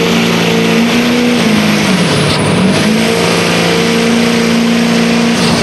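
GMC pickup truck engine running hard at high revs while pulling a weight-transfer sled. The revs sag about two seconds in and climb back up. A faint high whistle rises and falls with the engine.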